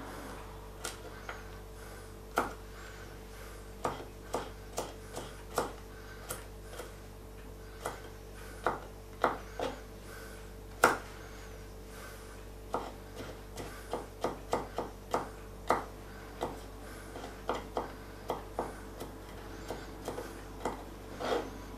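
Kitchen knife chopping garlic on a wooden cutting board: irregular sharp taps of the blade on the board, about one or two a second.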